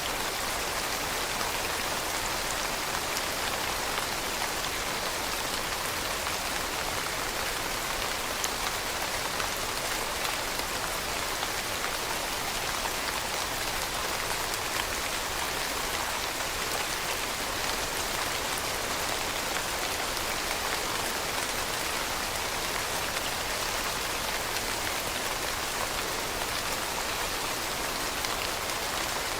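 Steady rain falling: an even hiss of many drops that holds the same strength throughout.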